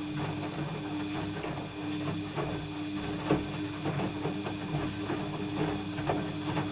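Washing machine drum turning in a wash cycle, with a metallic scraping and squeaking like metal rubbing on metal over a steady hum, broken by irregular scrapes and ticks. The cause of the grinding is unknown to the owner.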